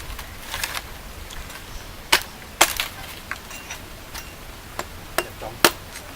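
Irregular sharp chops of a blade striking wood, about seven strikes spread over a few seconds.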